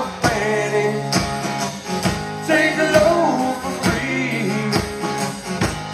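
Live band playing a country-rock song: strummed acoustic guitar and drum kit, with sung vocals.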